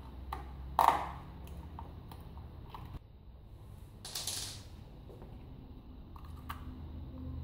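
Light clicks and knocks of a screwdriver and a plastic switch plate as the screws are taken out of a wall light switch: a few scattered clicks, the loudest about a second in, and a short rustling swish at about four seconds.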